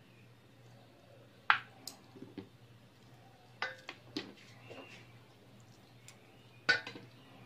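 Handling sounds as raw tuna jaw is worked with minced garlic in a basin: a few sharp knocks and clicks, the loudest about a second and a half in and near the end, over a faint low hum.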